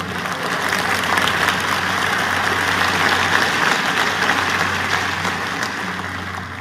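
Large audience applauding, building quickly at the start and tailing off near the end.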